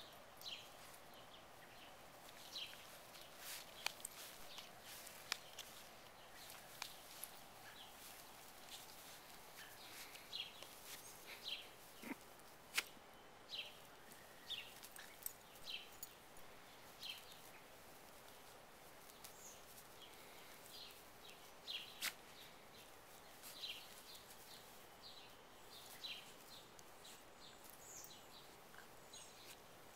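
Quiet outdoor ambience with scattered short, high chirps of small birds, irregular throughout, and a few faint sharp clicks.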